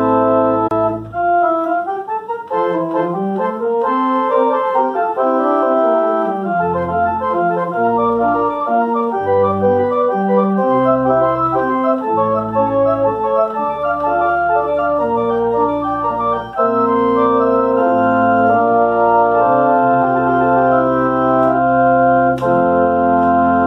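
Church organ playing sustained full chords with a moving melody over a stepping pedal bass. It ends on a broad held chord.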